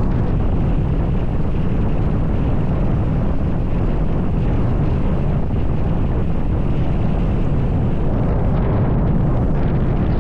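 Strong wind blowing across the microphone as a steady low rumble that does not let up, the wind near a tornado that is driving dust across an open field.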